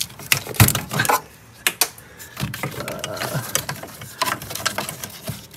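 Irregular clicks and knocks of hand tools and parts being worked on the engine's ignition parts, the loudest knock a little over half a second in.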